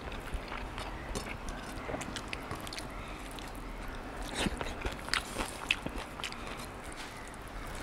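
Close-up eating sounds: chewing and biting mouthfuls of rice and curry eaten by hand, with small sharp wet clicks and smacks. Most of them come in a cluster a little past the middle.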